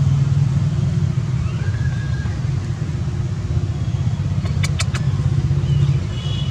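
Steady low rumble, with three sharp clicks in quick succession about four and a half seconds in.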